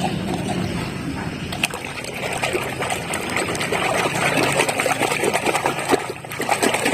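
Water splashing and trickling as a muddy toy car is washed by hand, a dense, steady crackle of small splashes and scrubbing.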